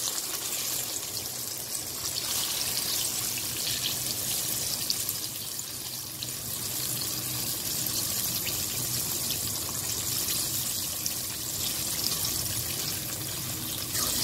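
Breaded chicken fillets shallow-frying in hot ghee: a steady sizzle with fine crackles. The bubbling shows the chicken still holds water that has yet to cook out.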